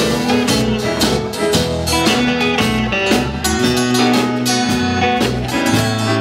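Live band playing rock and roll with a steady beat: electric and acoustic guitars over bass, keyboard and drums, with no singing.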